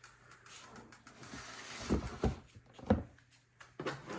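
Plastic snake tub and water bowl being handled: a brief scraping rustle, then three dull knocks about two to three seconds in.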